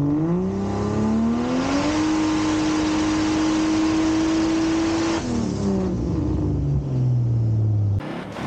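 Ford Barra inline-six engine in a VC Commodore revving up, holding steady high revs for about three seconds, then dropping back as the throttle is released. The sound cuts off abruptly near the end.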